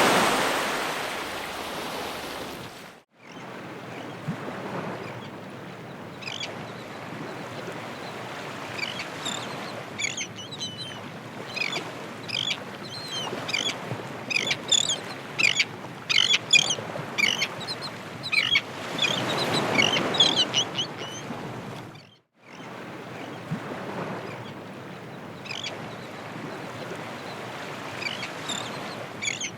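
Ocean surf on a shore: a wave washes out in the first few seconds, then steady surf with another wave surging about twenty seconds in. Over it runs a busy chatter of short bird calls that thins out near the end. The sound drops out briefly twice.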